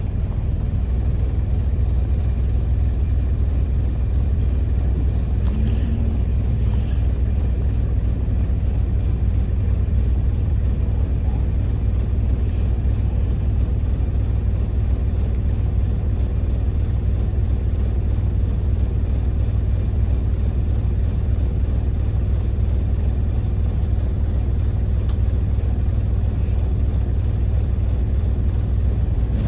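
Optare single-deck bus driving along, heard from inside the passenger saloon: a steady low engine and road rumble, with a few faint rattles.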